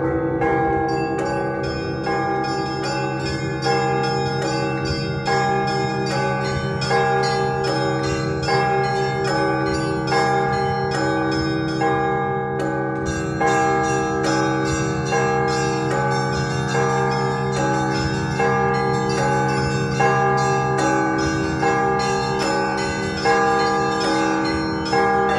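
Orthodox church bells ringing a festive peal (trezvon), many bells sounding together. Small bells strike in a quick repeating pattern over the held hum of the larger bells.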